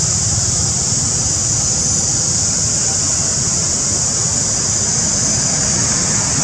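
A steady, high-pitched drone of a cicada chorus, unbroken throughout, over a low, even rumble.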